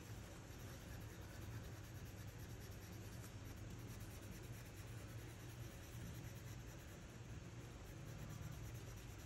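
Faint, steady rubbing of a cotton swab blending charcoal on drawing paper, over a low steady hum.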